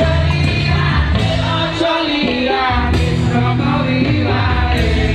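Music: a song with a lead voice singing over band accompaniment with a steady bass line.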